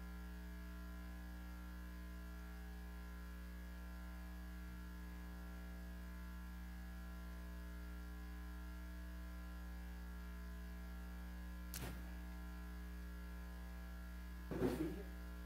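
Steady electrical hum from the room's microphone and sound system. A faint knock comes about twelve seconds in, and a louder short bump comes near the end.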